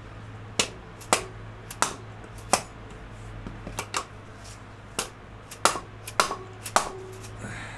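A dead blow hammer strikes a hand-held manual impact driver a dozen or so times in sharp, irregular knocks, trying to break loose a stuck screw on a carburetor plenum.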